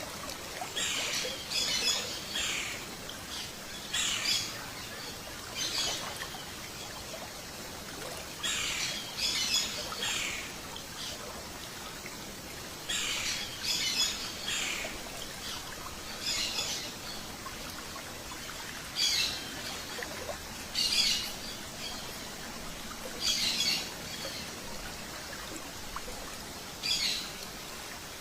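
Birds calling: short, high calls come in clusters every one to three seconds over a steady faint hiss.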